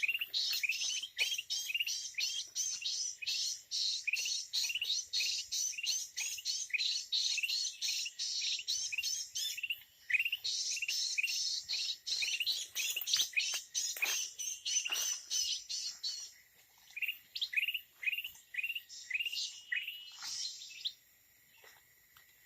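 Red-eyed bulbuls calling: a fast run of sharp rising chirps, several a second, with a short break about ten seconds in, thinning out after about sixteen seconds and stopping just before the end.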